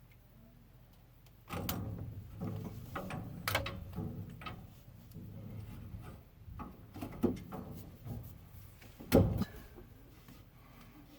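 Irregular handling noises of plumbing work on copper pipe: clicks, knocks and scrapes, with one loud knock about nine seconds in.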